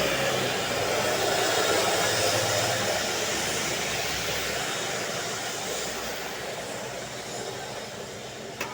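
A bus driving past, its engine hum and road noise loudest at the start and fading steadily as it moves away.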